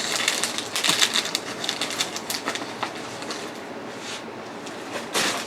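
Small zip-top plastic bags of resin diamond-painting drills being handled and shuffled: a quick run of crinkling and rattling clicks that thins out, with one more short rustle near the end.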